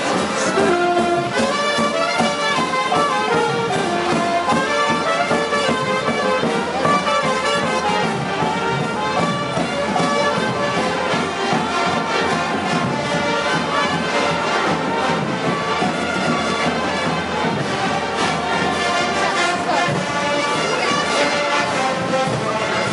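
Brass band playing a tune, many instruments sounding together.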